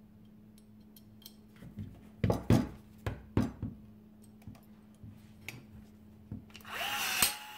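Light metallic clicks and clinks as a stainless steel pop rivet is fitted through a steel strip and into the nose of a Milwaukee M12 2550-20 cordless rivet tool. Near the end the tool's motor whirs for about half a second, pulling the rivet.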